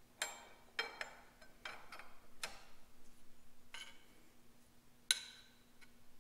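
Aluminum lever plates, shaft collars and a steel shaft clinking and knocking as they are handled and fitted together on a steel table: about seven sharp metallic knocks with brief ringing, the loudest about a quarter second in, just under a second in and about five seconds in.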